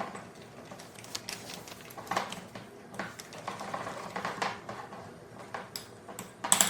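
A tablespoon stirring cake batter in a mug: an irregular run of clicks and scrapes against the mug, with a sharper clink near the end.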